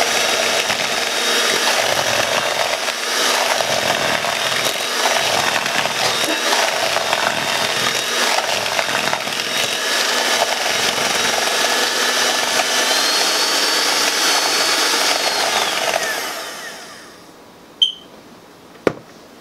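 Electric hand mixer running steadily, its twin beaters creaming butter and sugar in a plastic bowl, then winding down and stopping. Two short sharp clicks follow.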